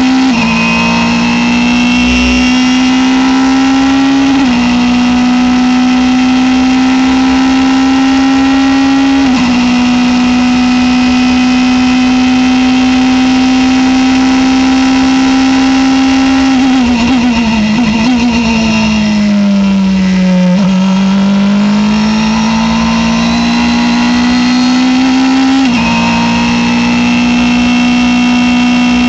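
Norma M20 FC sports prototype's engine at full throttle, heard onboard: its note climbs steadily and drops sharply at three quick upshifts in the first ten seconds. Around the middle it brakes, with the pitch wavering and falling through several downshifts, then it accelerates again with one more upshift near the end.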